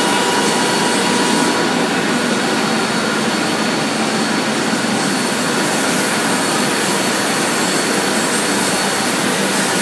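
Industrial glass-processing machinery running: a steady, loud rushing hum like a large blower, with a few faint steady tones on top.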